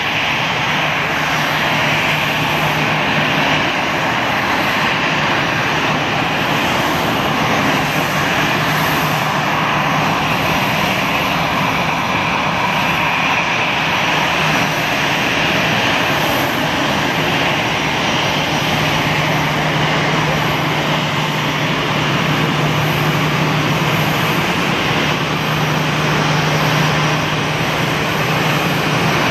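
Airbus A320-216's twin CFM56 turbofan engines at low taxi power: a steady jet whine and rush with a low steady hum that fades in the middle and comes back strongest in the last third.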